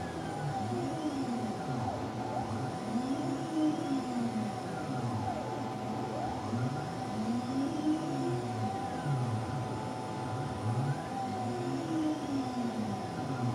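Homebuilt CNC milling machine (a converted RF-31-type mill) running a program. Its axis motors whine, rising and falling in pitch as they speed up and slow down on each move, over a steady whine underneath.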